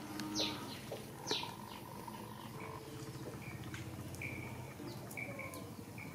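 High-pitched animal squeaks and chirps: two sharp squeaks falling quickly in pitch within the first second and a half, then a thin chirp repeated several times at one pitch in the second half.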